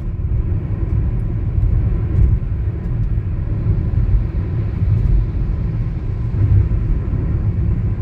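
Road noise from the Yokohama tyres of a Hyundai Aura, heard inside the closed cabin at highway speed: a steady low rumble.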